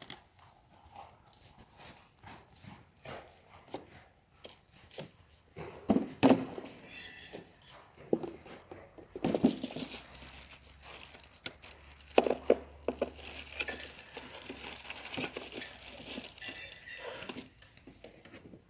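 Horse coughing several times, short explosive coughs a few seconds apart, the loudest about six, nine and twelve seconds in.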